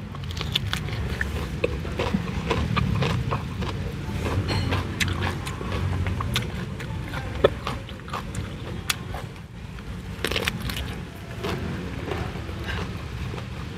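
Close-up chewing and crunching of a leaf-wrapped fried tofu roll with fresh herbs and cucumber, a steady run of many small sharp clicks and crunches.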